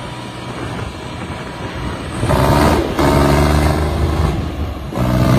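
John Deere tractor's diesel engine revving hard under heavy load as its rear tyres dig through deep loose sand. The engine note grows much louder a little over two seconds in, dips briefly twice and surges again.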